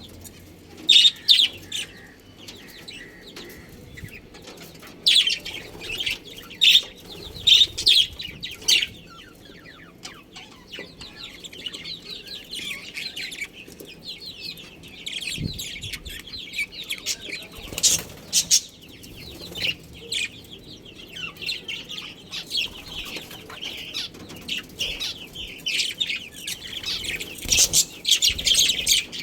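Budgies chirping: sharp, loud calls repeated over the first several seconds, then continuous fast warbling chatter, with louder calls again near the end.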